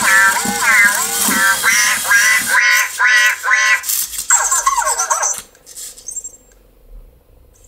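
Anki Cozmo toy robot imitating a fire-truck siren with its electronic voice, the pitch rising and falling repeatedly about twice a second. It ends with a falling glide and stops about five seconds in.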